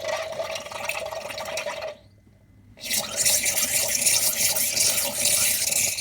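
Steam wand of a Swan Retro pump espresso machine hissing and gurgling as it froths milk in a jug. It stops for under a second about two seconds in, then resumes and cuts off at the end.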